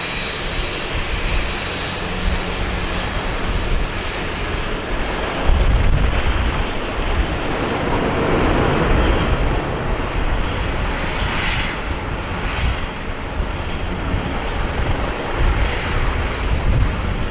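Jet engine noise from an Airbus A330-300 airliner: a steady rush over a deep rumble, swelling about five seconds in and again near the end.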